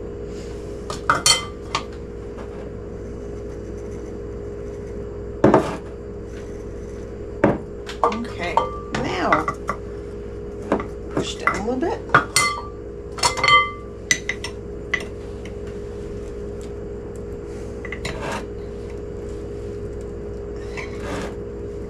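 Kitchen utensils clinking and knocking against a glass canning jar: scattered taps, several with a short ring, busiest in the middle stretch, over a steady low hum.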